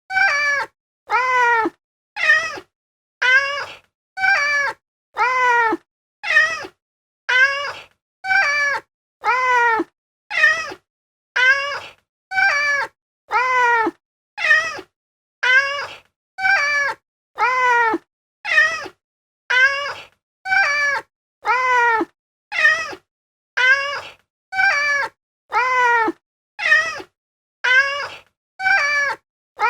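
Domestic cat giving short little meows, one about every second, each call alike and dropping in pitch at its end, with silence between them.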